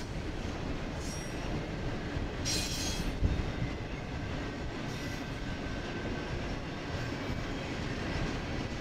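Double-stack intermodal freight cars rolling past on the rails with a steady rumble and clatter of wheels. About two and a half seconds in a brief high wheel squeal rings out, followed at once by a sharp bang.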